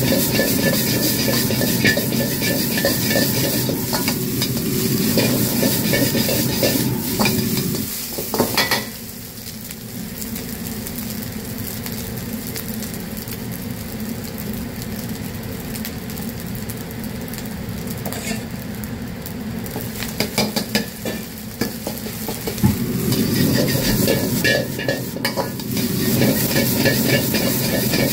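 Steel ladle scraping and tossing fried rice in a hot carbon-steel wok, with oil sizzling. About nine seconds in the stirring stops and the rice sizzles more quietly in the wok; the ladle stirring starts again some seconds before the end.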